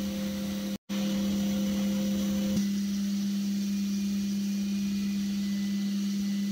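Milling machine spindle running an end mill in aluminium plate: a steady hum over the hiss of the fogless coolant sprayer's air-and-coolant mist. There is a brief drop-out about a second in, and a click about two and a half seconds in, after which one of the higher tones stops.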